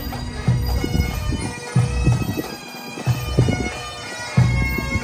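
Bagpipes playing a tune over their steady drone, with low thumps every second or so.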